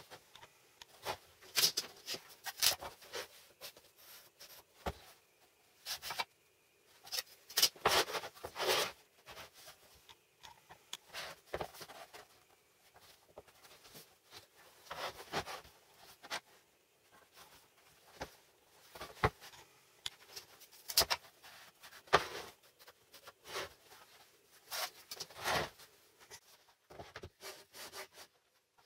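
Wooden parts of a homemade MDF table-saw sled being handled: its pivoting angle arms swung and their wooden knobs turned, giving irregular knocks and clicks of wood on the MDF board, with a few longer scrapes.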